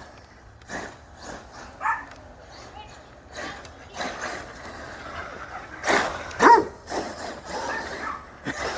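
A dog barking excitedly in short bursts, loudest about six seconds in, while a radio-controlled desert racer truck runs in the dirt.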